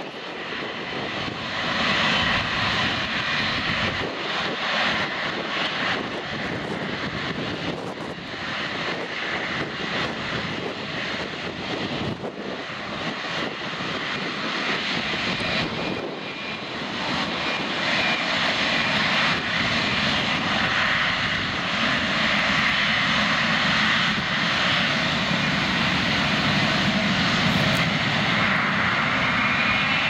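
Emirates Boeing 777-300ER's GE90 turbofan engines running as the airliner taxis past: a steady jet roar with a high whine, getting louder after about halfway, the whine beginning to rise in pitch near the end.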